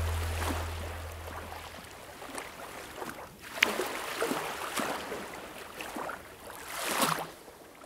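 Background music fading out over the first two seconds, then sea water washing and splashing in irregular surges, with a sharp splash about three and a half seconds in and a louder surge near the end.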